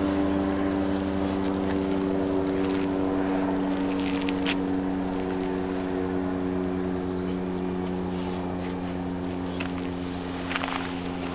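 An engine running at one steady pitch, slowly growing fainter, with a couple of brief clicks about four seconds in and again near the end.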